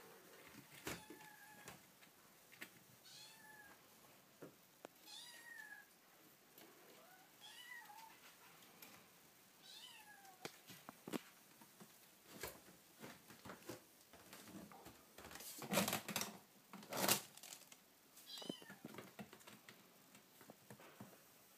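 Kitten meowing again and again in short, high calls that bend in pitch, about one every one to two seconds. Scuffs and clicks come from kittens playing, with two louder rustling bursts near the end.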